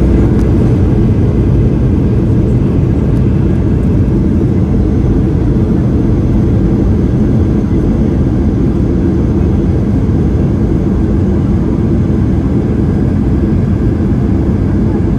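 Cabin noise of a Boeing 737 rolling out on the runway after touchdown: a loud, steady, deep rumble from the engines and the jet running along the runway, easing off slightly as it slows.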